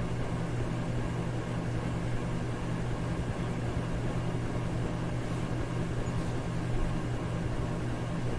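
Electric fan running steadily: a low motor hum under an even rush of air noise, unchanging throughout.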